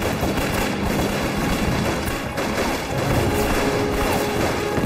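Action-film soundtrack: music mixed with fast, dense gunfire.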